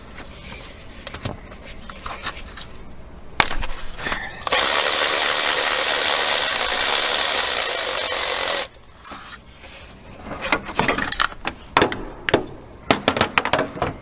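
Power ratchet on a long extension spinning out the bolt that holds the engine's ground-wire eyelets: a steady, even whir for about four seconds starting about four and a half seconds in. Around it come scattered clicks and rattles of the socket, extension and metal terminals being handled.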